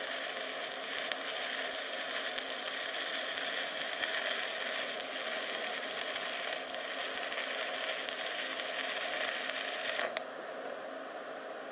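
Electric arc welding on a steel railroad-rail anvil: a steady crackling and hissing arc that cuts off suddenly about ten seconds in, leaving a quieter steady background hum.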